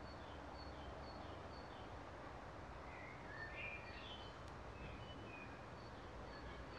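Outdoor ambience with birds chirping on and off: short high chirps repeating every half second or so and a few lower twittering phrases, over faint steady background noise with a low hum.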